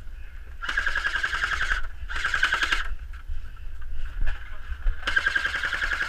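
Airsoft rifle firing three full-auto bursts of rapid clicks, the first about a second long, the second shorter, the last about a second and a half, muffled through a waterproof camera housing.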